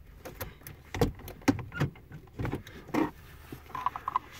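Plastic center-console trim panel of a 2015 Toyota Camry being pried up: its retaining clips unsnap and the hard plastic clicks and knocks several times, with a short squeak near the end.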